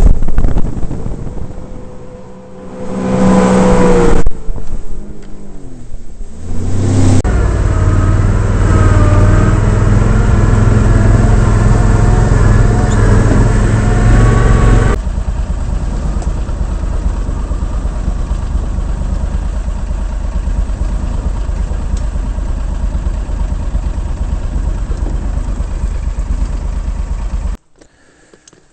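Engine noise from vehicles running. A personal watercraft engine runs at the start, then the engine of an eight-wheeled Argo amphibious ATV runs steadily while it drives through a flooded mud trail. The engine sound cuts off abruptly near the end.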